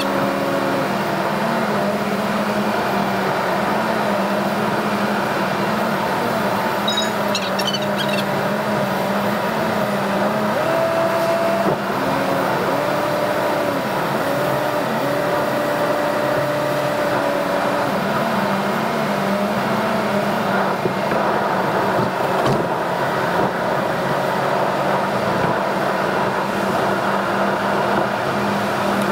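Car driving on a wet road, heard from inside the cabin: steady engine hum and tyre noise, the engine's pitch drifting slowly up and down with speed.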